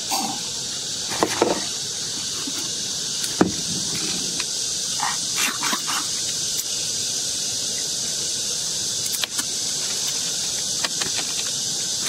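Short sucking and slurping sounds, a handful of times, as people suck the meat out of sea snail shells and slurp broth, over a steady high insect drone.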